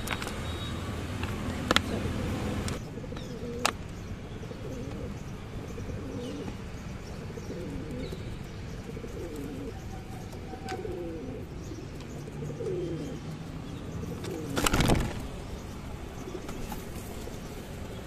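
Feral rock pigeons cooing repeatedly, low rolling coos that swoop in pitch. A few sharp clicks early on and a short loud rush of noise about fifteen seconds in.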